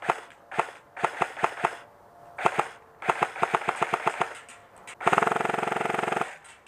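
Classic Army ECS M4 airsoft electric rifle (AEG) firing in short strings of rapid shots, then one longer, faster full-auto burst of about a second, starting about five seconds in. It is running on a dying battery.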